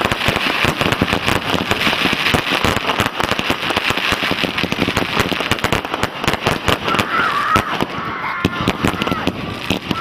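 Firework display: rapid, dense crackling and popping of many small reports a second, easing slightly in the last couple of seconds.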